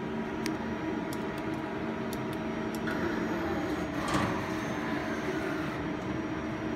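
CNC turret lathe running: a steady hum from its motors and hydraulics with a few light clicks, then a stretch of hiss from about three seconds in with a short, louder burst of noise about four seconds in as the tool turret moves.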